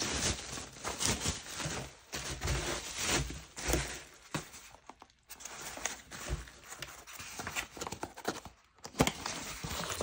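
Bubble wrap rustling and crinkling as it is pulled out of a cardboard box, with cardboard boxes scraping and knocking as they are handled, in irregular bursts.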